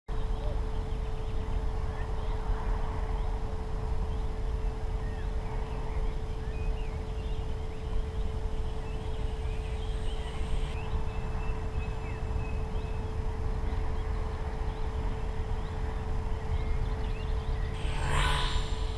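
Outdoor ambience of low wind rumble with a steady hum and faint chirps; near the end an RC model plane's propeller buzzes past close overhead, briefly and loudly.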